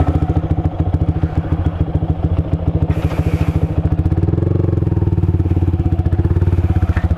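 Motorcycle engine running at idle with a steady, rapid beat. The revs rise briefly and settle back about four to five seconds in.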